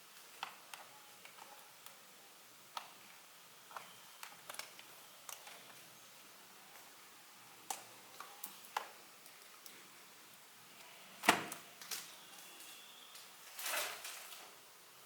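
Handling a keyboard and its packaging: scattered light clicks and taps, irregularly spaced, with one sharper knock about eleven seconds in and a brief rustle near the end.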